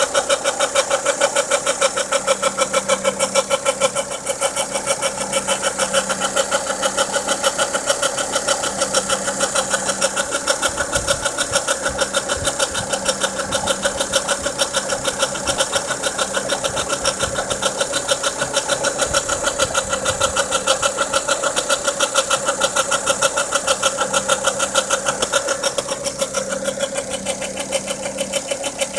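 Volvo V50 engine running at a steady speed with a fast, even pulsing tick-knock: the abnormal engine noise that appeared after the timing belt was replaced.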